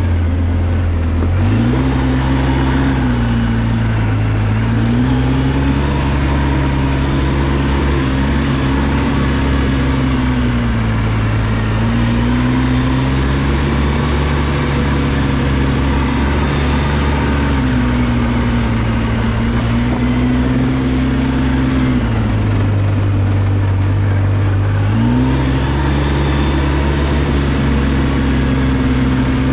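2005 Polaris Sportsman MV7 military ATV engine running under way, its pitch rising as it picks up speed about a second and a half in, then swinging up and down with the throttle several times. It drops back near the end and climbs again shortly after.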